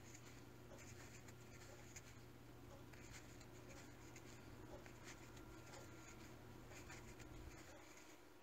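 Faint, irregular scratching and rubbing of a crochet hook drawing yarn through single crochet stitches, over a low steady hum.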